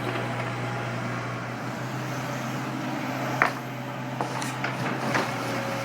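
Diesel engine of heavy earthmoving equipment running steadily with a low hum. A single short, sharp sound rises in pitch about three and a half seconds in.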